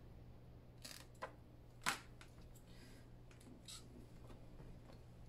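Scissors snipping through clear plastic film edged with tape, mitering the corner of a pocket: a few faint, short snips, the loudest about two seconds in.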